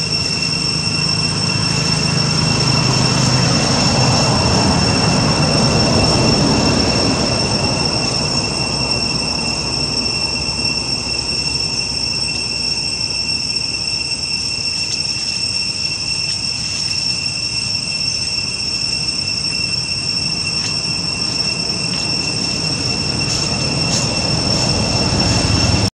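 Cicadas droning with a steady, high-pitched, unbroken tone. A low rushing noise is louder in the first third, then fades.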